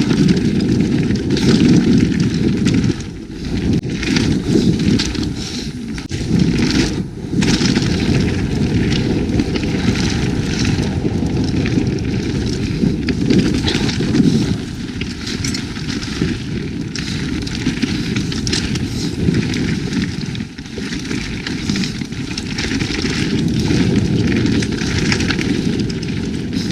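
Wind rushing over a GoPro microphone at riding speed on a mountain bike, mixed with tyres rolling over dirt and rocks and the bike rattling, heard as a steady low rumble broken by many short knocks.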